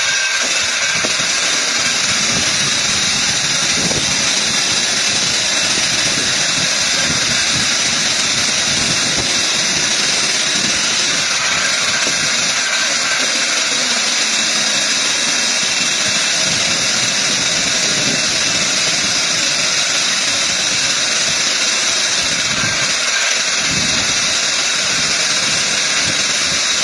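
Water-well drilling machine running loudly and steadily: a constant mechanical noise with a strong hiss, unchanging throughout.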